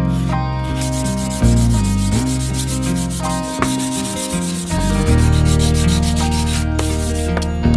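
Sandpaper wrapped around a wooden block rubbed in quick repeated strokes along an elm knife handle. Background music with held low notes plays under it.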